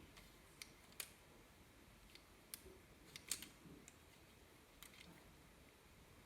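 Faint, irregular plastic clicks from a Lego pistol's blowback mechanism being worked by hand: about half a dozen single clicks, the loudest a little over three seconds in.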